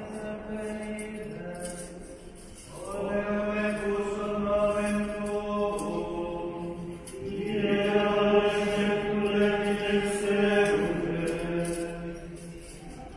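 Liturgical chant: voices singing a slow plainchant in long held notes that move from pitch to pitch in steps. The singing swells louder about three seconds in and again about halfway through.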